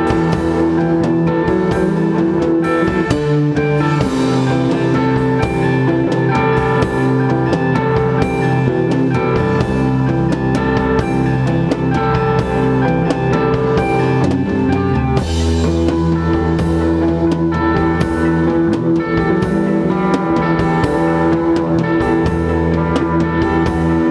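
Instrumental rock band playing live: electric guitars over a Pacific drum kit with Sabian cymbals, with frequent cymbal hits. The chords change about three seconds in and again about fifteen seconds in.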